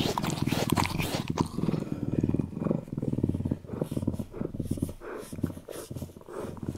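A large animal growling in a series of low, rough bursts with short pauses between them.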